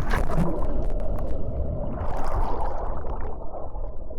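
Water rushing and splashing around a rider sliding down a waterslide, a steady wash of water over a low rumble, broken by short sharp splashes of spray.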